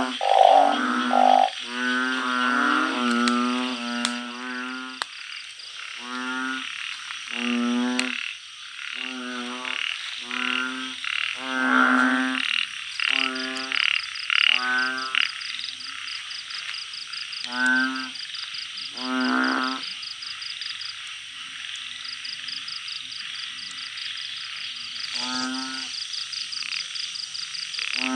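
Male truncate-snouted burrowing frogs (Glyphoglossus molossos) calling in a chorus: low, pulsed croaks about half a second each. The croaks come in quick succession at first, then spaced a second or more apart, with a pause of several seconds past the middle. A steady high-pitched trill joins about halfway through.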